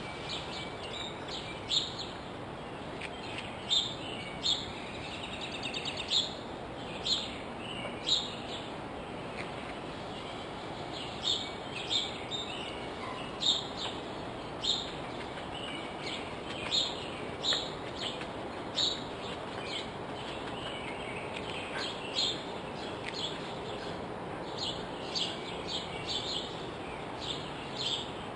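Songbirds chirping in short, sharp calls scattered throughout, with a quick trill about six seconds in, over a steady background hiss.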